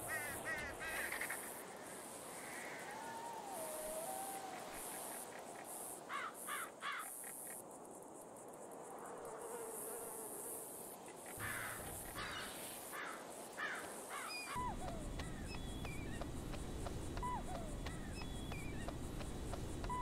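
Several birds calling and chirping, with short rising and falling whistled notes, over a high, pulsing insect hum. About fourteen seconds in, the background changes to a steady low rumble, with short falling calls above it.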